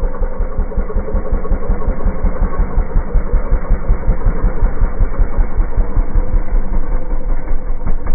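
Small dirt bike engine running steadily with a rapid, even putter.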